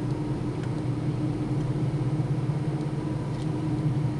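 Car engine and road noise heard from inside the cabin while driving: a steady low drone.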